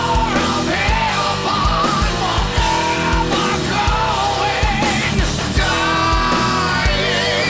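Heavy rock soundtrack music with a steady driving drum beat and sung vocal lines.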